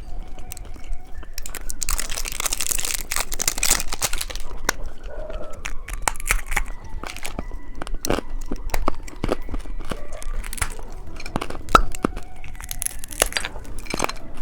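A hard candy lollipop being bitten and crunched close to the microphone, with many sharp cracks. A denser crinkling, like a plastic wrapper, comes about two to four seconds in.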